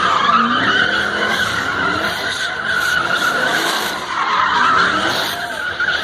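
Twin-turbo 2014 Chevrolet Camaro SS doing a burnout: rear tyres squealing continuously with a wavering high screech over the V8 engine running hard. The squeal swells again about four and a half seconds in.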